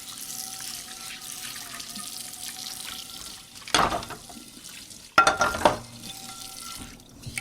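Dishes being washed in a kitchen sink under a running tap: a steady water hiss, with dishes clattering about halfway through and again, longer, a second and a half later.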